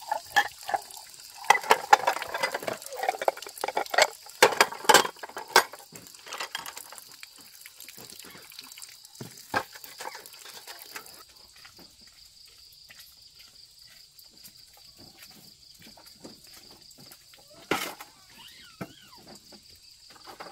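Water splashing and being poured, with irregular clatters and knocks through the first several seconds before it quietens, over a steady high-pitched whine.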